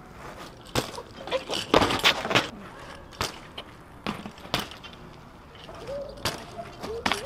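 BMX bike ridden along a concrete ledge: tyres rolling with a string of sharp knocks and clatter as the bike hits the ledge, most of them in the first couple of seconds, and a few short squeaks near the end.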